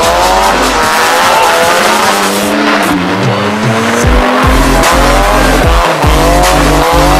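A car engine revving hard in repeated rising pulls, with tyre squeal. Under it is bass-heavy music with deep kick drums that fall in pitch.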